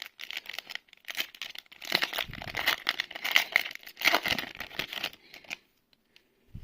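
Foil wrapper of a Magic: The Gathering play booster being torn open and crinkled: a dense run of crackling and tearing for about five seconds that then dies away.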